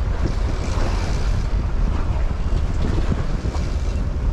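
Wind buffeting the microphone over the wash of the sea churning around a sport-fishing boat's stern.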